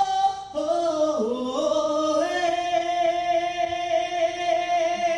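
Male voices singing in close harmony over strummed acoustic guitars. After a short phrase and a dip in pitch, the voices hold one long note together.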